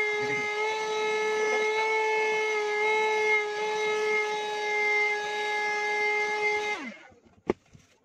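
Handheld cordless vacuum cleaner running with a steady high whine as it sucks up loose blue sand. Near the end it is switched off and winds down with a falling pitch, followed by a single sharp click.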